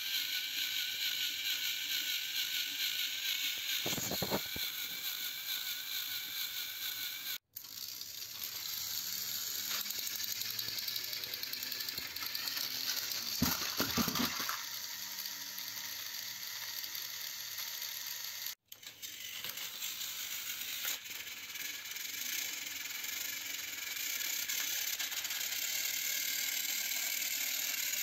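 Small electric motors and plastic gears of battery-powered toy trains whirring steadily, with a rattling, clicking gear noise, as the engines push against each other on plastic track. A clattering knock comes about 4 seconds in, and a longer clatter near the middle. The sound cuts out briefly twice.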